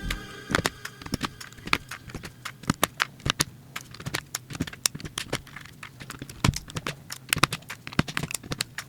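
Typing on a mechanical keyboard with brown switches: irregular key clicks, several a second, with a few louder strokes. Background music cuts out just after the start.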